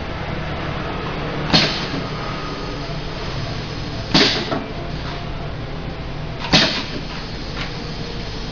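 Pneumatic piston filling machine for spout pouches cycling: three sharp clacks, each with a brief hiss of air, roughly every two and a half seconds as the filling head dispenses into a pouch, over a steady low hum.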